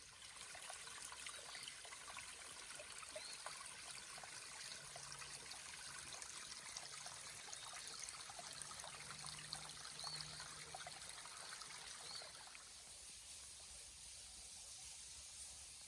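Water trickling and splashing over rocks, a faint steady babble with many small drips and splashes that eases off a little about twelve seconds in.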